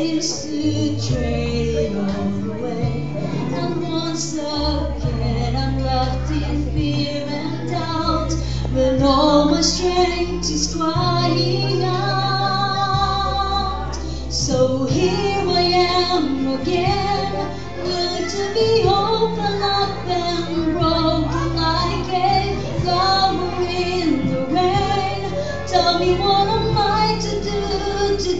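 A woman sings a slow song into a microphone, with some long held notes that have vibrato. Instrumental accompaniment with sustained bass notes plays under her.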